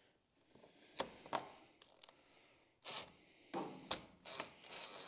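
Faint handling sounds: a few sharp clicks and short scrapes of small metal screws and plastic parts as a replacement mirror is fitted with Phillips screws.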